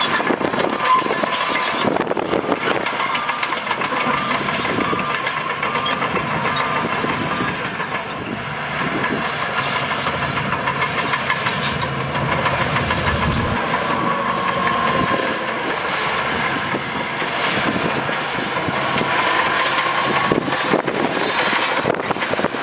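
Bulldozer working, its diesel engine running under load with a steady metallic clatter and squeal from the crawler tracks that comes and goes.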